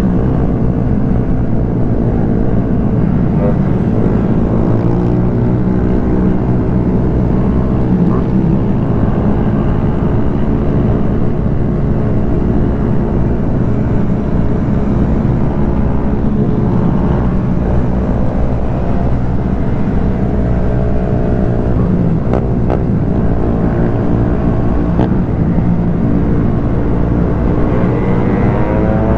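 Small motorcycle engine running steadily while riding at speed, its pitch shifting slightly with the throttle, over a heavy rush of wind and road noise on the camera's microphone.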